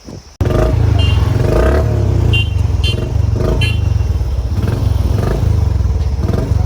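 Motorcycle engine running while riding, a loud, steady low drone with a fast pulse; it cuts in suddenly about half a second in.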